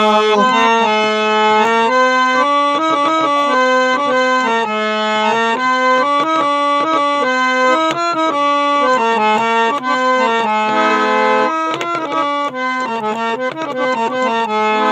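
Instrumental break in a Sindhi song: a free-reed instrument with an accordion-like sound plays a stepping melody of held notes over a steady low note, with no singing.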